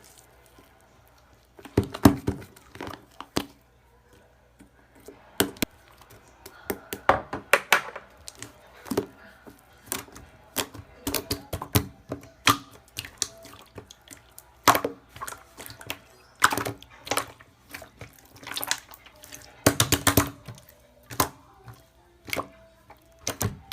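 Slime being pressed and squeezed by hand, making irregular clicking and popping sounds, some single and some in quick clusters.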